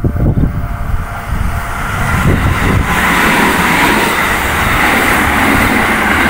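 Kintetsu local train passing over a level crossing. A low rumble swells into a loud, steady rush of wheels on rail about two and a half seconds in.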